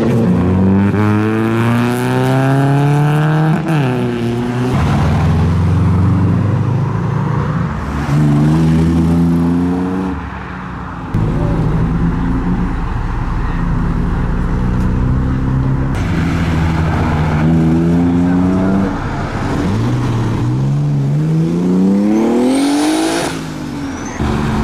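Modified car engines revving hard while leaving a car meet. The pitch climbs in four long sweeps, and each one cuts off sharply and falls back, with steady engine running in between.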